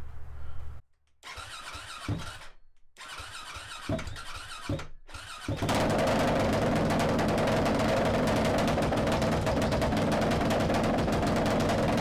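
Yamaha WR450's four-stroke single-cylinder engine being started: a few short stuttering sounds with brief cut-outs, then about five and a half seconds in it catches and runs steadily and loudly. The owner says the carburettor is running a little lean.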